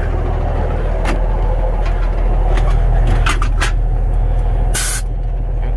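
Volvo White truck's diesel engine running steadily, heard from inside the cab, with a few sharp clicks from the dashboard controls and a short burst of air hiss about five seconds in.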